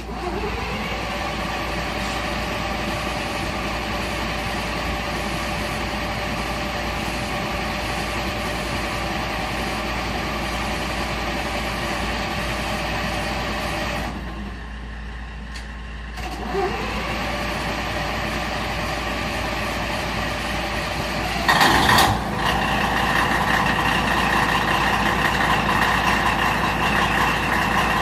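Diesel engine of a KiHa 47 railcar starting, a rising whine as it catches, then idling steadily. About 14 seconds in it drops away for a couple of seconds and starts again with the same rising whine. A brief loud burst comes near 22 seconds, and the idle is somewhat louder after it.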